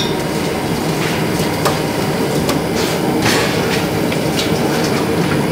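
Gas stove burner running under a wok of boiling vegetable soup, a steady rumble. A few light clicks of a metal spoon against the wok.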